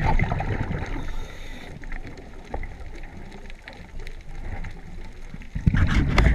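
Muffled underwater noise picked up through a camera's waterproof housing: a low steady rumble of water moving past the housing. About five and a half seconds in it turns much louder, with crackling and scraping.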